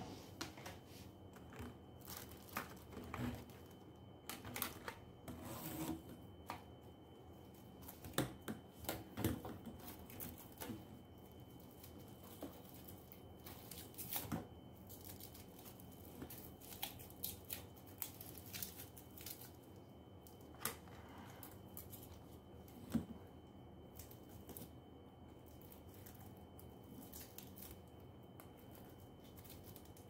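Plastic parts and the ribbed hose of a Kärcher WD1 wet and dry vacuum being handled and fitted together by hand: scattered clicks, taps and rustles, busiest in the first half.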